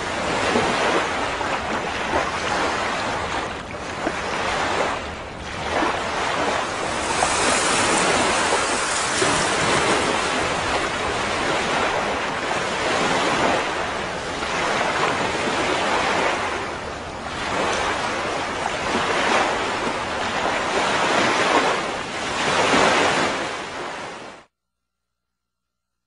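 Sea surf washing on a beach: a steady rush of noise that swells and eases every few seconds, cutting off suddenly near the end.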